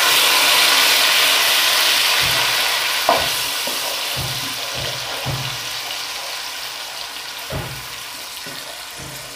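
Tomato paste sizzling in hot oil in a metal kadhai, a loud hiss that begins suddenly as the paste hits the oil and slowly dies down as it cooks. A wooden spatula stirs it, knocking against the pan a few times.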